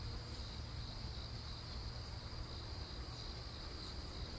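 Insects chirring steadily in a high, even band, over a low background rumble.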